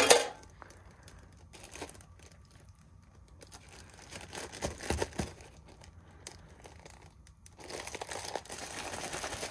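A pan clanks once at the start. Then a plastic zip-top bag crinkles as it is handled with batter and raw fish pieces inside, sparse at first and busier near the end.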